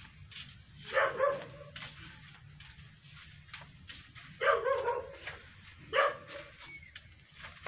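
A dog barking in three short outbursts, about a second in, around four and a half seconds in, and again about six seconds in.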